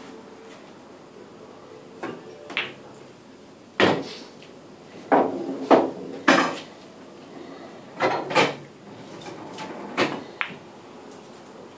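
Pool balls clacking: the cue tip striking the cue ball, balls colliding and knocking off cushions and into a pocket, about a dozen sharp knocks over two shots.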